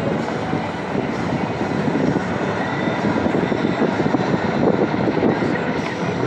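Steady rumbling road and engine noise of a moving vehicle.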